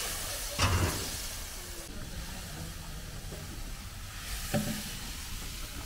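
Steady hiss, with a loud knock just under a second in and a smaller one about four and a half seconds in.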